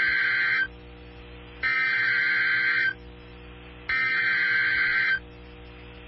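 NOAA Weather Radio SAME/EAS digital header: harsh warbling data bursts about a second long with about a second's gap between, the end of one and then two more, opening a severe thunderstorm warning. A faint steady hum runs under the gaps.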